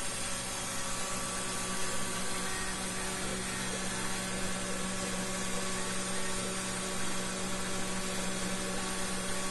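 Belt-driven spindle of a Taig CNC micro-mill running steadily at about 10,200 RPM during a fine engraving pass in wax, a steady hum with several fixed tones, over an even hiss from compressed air blowing on the workpiece.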